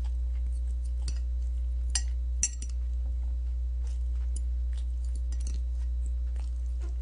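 Metal chopsticks clicking and clinking against a ceramic plate as food is picked up: scattered light clicks, with two sharper clinks about two seconds in. A steady low electrical hum runs underneath.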